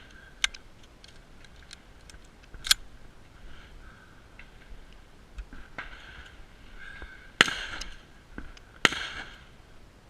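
12-gauge pump-action shotgun firing during a match stage: two loud shots about a second and a half apart in the second half, each ringing out briefly. Two fainter sharp cracks come before them, with scattered small clicks between the shots.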